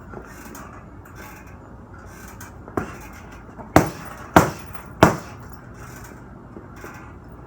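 Punches landing on a heavy punching bag: one lighter hit, then three hard power punches in quick succession, about two a second.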